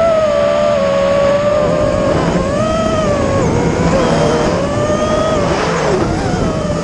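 Small FPV multirotor drone's electric motors and propellers whining, the pitch rising and falling as the throttle changes, with a dip in pitch and a rush of air noise near the end.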